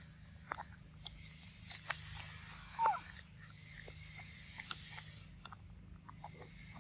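Young macaque biting and chewing ripe papaya close to the microphone: a run of short wet smacks and clicks, with one louder short falling squeak about three seconds in.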